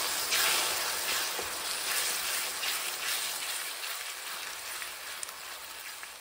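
Grated tomatoes sizzling in hot mustard oil in a steel kadai, stirred through the onion masala with a wooden spatula. The sizzle is loudest at first and dies down gradually as the wet tomato cools the pan.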